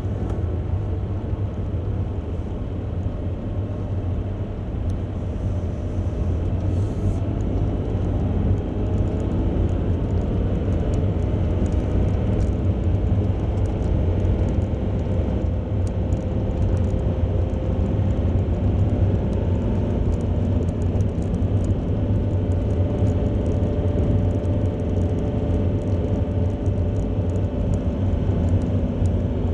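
A motor vehicle running, with a heavy low rumble and an engine note that climbs slowly in pitch from about a third of the way in.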